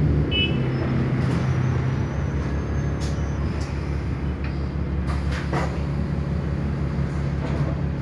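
Bus engine running steadily at low revs, heard from inside the passenger saloon, with a few faint clicks and rattles.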